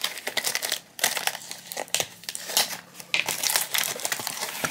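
Packaging crinkling and rustling as hands open a small cardboard toy blind box: a dense run of short crackles.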